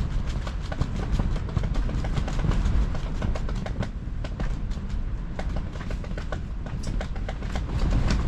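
Strong wind buffeting a pop-up ice-fishing shelter: a steady low rumble with rapid, irregular flapping and rattling of the shelter fabric.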